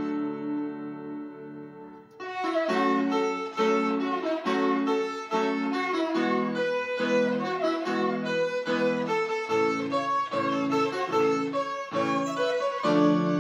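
Violin and electronic keyboard duet: the violin plays the melody over chords held and restruck on the keyboard about once a second. Near the start a held chord fades to a brief lull before the playing picks up again.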